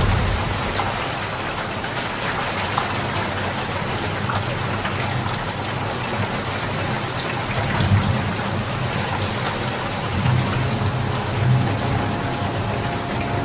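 Steady rain falling on a surface, a dense hiss with scattered drop ticks. Brief low rumbles swell up a few times in the second half.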